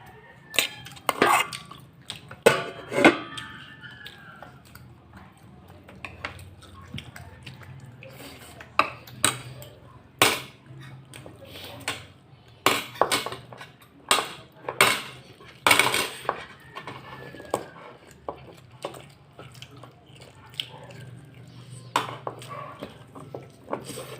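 Cutlery clinking and scraping against a plate while eating: a dozen or so sharp, irregular clinks with quieter rattles between them.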